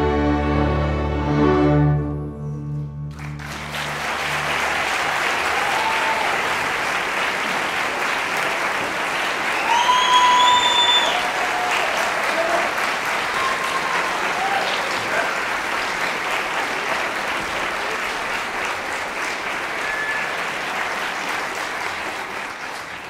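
A children's string orchestra of violins and cellos holds its final chord, which dies away about three seconds in. An audience then applauds steadily for the rest of the time.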